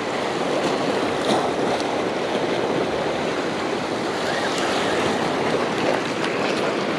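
Ocean surf: a steady rushing wash of waves on the shoreline.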